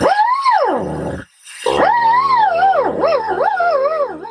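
A dog howling: two long, wavering howls that rise and fall in pitch, with a short break between them.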